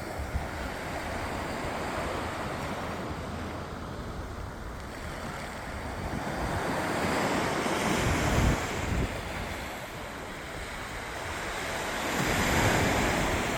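Sea waves breaking and washing on a beach, the surf swelling louder about halfway through and again near the end, with wind noise on the microphone.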